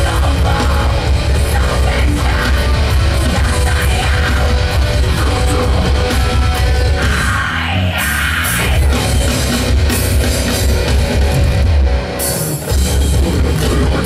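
Heavy metal band playing live through a festival PA: distorted electric guitars and drum kit, with brief breaks in the bass about halfway through and again near the end.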